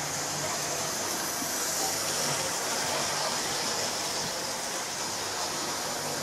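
Model train running round a small layout: a steady whir of the locomotive's motor and wheels on the track, with an even hiss over it.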